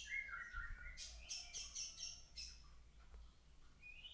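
Birds chirping faintly in the background: a few short whistled notes, and about a second in a quick run of high chirps, roughly five a second, for just over a second.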